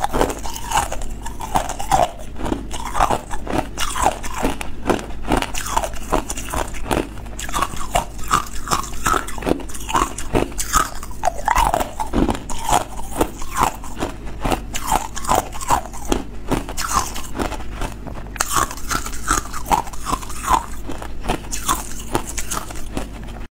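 Hard ice cubes being bitten and chewed, close-miked: a dense, irregular run of sharp cracks and crunches, several a second.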